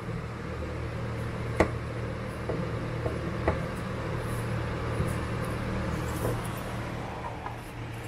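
A few sharp clicks and light taps of parts being handled while an aluminium charge pipe is fitted, the loudest about one and a half seconds in and another about three and a half seconds in, over a steady low hum.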